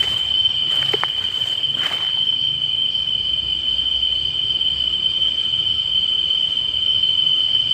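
Night insects, crickets, trilling in one unbroken high-pitched tone, with a couple of short clicks about one and two seconds in.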